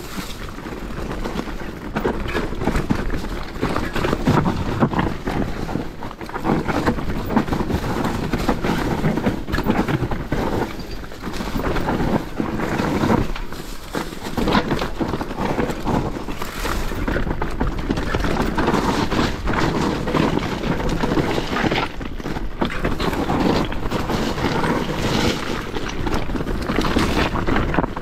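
Commencal Meta SX V4 enduro mountain bike descending a rough dirt trail: wind rushing on the chest-mounted camera's microphone over tyre noise and a constant run of knocks and rattles from the bike going over rocks and roots.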